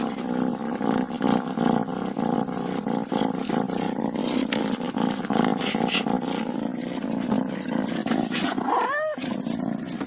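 Cat cub making a continuous low rumbling sound, with one short cry that rises and falls about nine seconds in.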